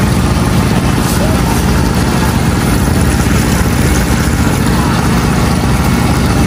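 Battered chicken frying in a steel deep fryer, the oil sizzling steadily, over a steady low rumble like a running engine and background voices.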